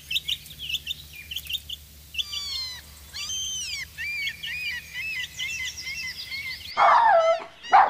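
Domestic chicken chicks cheeping: a steady run of short, high peeps, many overlapping, some rising and some falling in pitch. Near the end a louder, lower cry cuts in.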